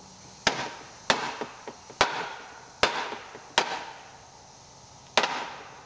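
Rubber mallet striking the housing of a Giraffe Tools Grandfalls G20 pressure washer hose reel: six sharp knocks about a second apart, the last after a longer pause. The blows knock the unit's half-inch lag bolts down into the tight slots of its wall bracket.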